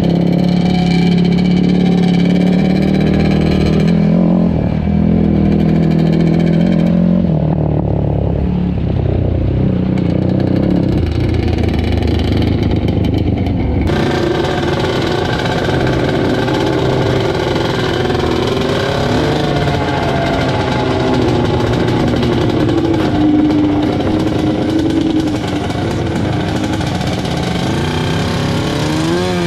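Engines running under way on a dirt trail. For the first half it is a quad's engine. After a cut about halfway through, it is a riding mower's swapped-in Yamaha Banshee two-stroke twin, rising and falling in pitch as it is throttled along. The owner says this mower engine is bogging at the top end, which he takes as a sign that it is running lean.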